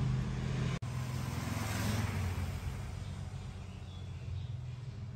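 A steady low engine-like hum under a wash of noise, as from a running motor vehicle, cutting out briefly about a second in.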